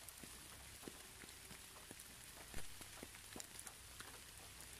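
Rain falling: a faint steady hiss with scattered individual drops ticking, and one louder tap about two and a half seconds in.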